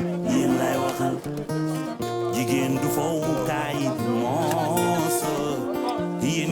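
Background music carried by a strummed acoustic guitar, with held bass notes and a wavering melody line over them.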